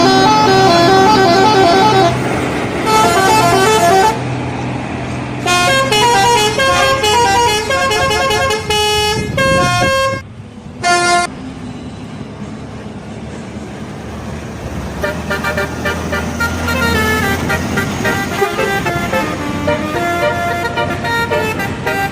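Indonesian bus telolet horns playing quick multi-note melodies, tune after tune, over a bus engine running. The tooting pauses briefly about ten seconds in, and the later tunes are fainter.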